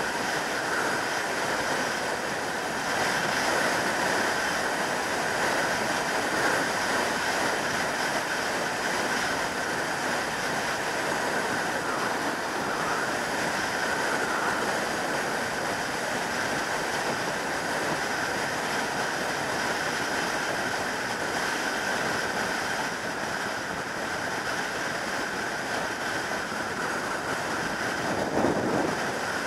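Steady rush of wind over the microphone with road and engine noise from a 2003 Yamaha YZF600R Thundercat sportbike cruising at motorway speed. A brief louder swell comes near the end.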